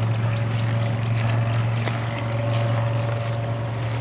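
A steady, low-pitched mechanical drone, like a motor or engine running at constant speed, holding one pitch without change.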